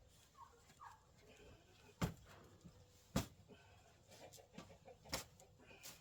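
A shovel striking hard, packed ground three times, with chickens clucking softly between the strikes.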